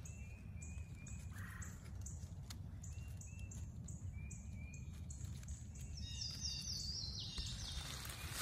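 Woodland birds singing: a steady run of short, high chirps several times a second, with a quick descending trill about six seconds in, over a low background rumble.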